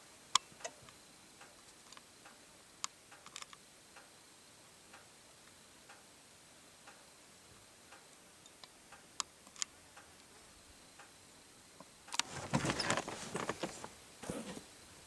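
Scattered sharp single clicks over a faint background, then, about twelve seconds in, two or three seconds of louder rough rustling and knocking from the camera being handled and swung.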